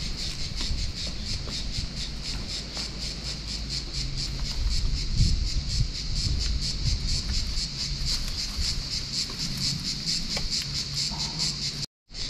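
Cicadas singing, a steady, rapidly pulsing high buzz, with wind rumbling on the microphone.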